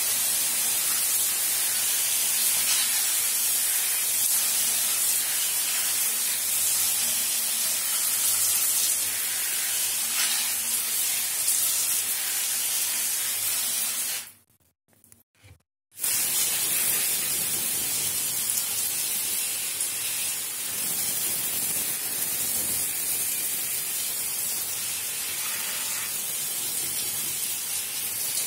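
Shower head spraying water over potted orchids, a steady hiss of water falling on the leaves. It stops for about two seconds around halfway, then starts again.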